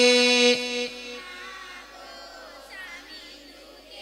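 A man's chanting voice holding the last note of a sung Sinhala Buddhist blessing verse, which stops about half a second in; after it, only faint singing voices in the background.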